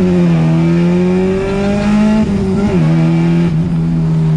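1993 Honda Civic Si's four-cylinder engine pulling under acceleration. Its pitch climbs slowly and drops at gear changes, most clearly near three seconds in.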